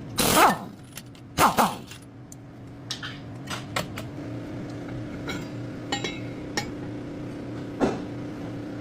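Metal tools and parts clinking and knocking: two louder strikes near the start and about a second and a half in, then scattered lighter clinks, over a steady low hum.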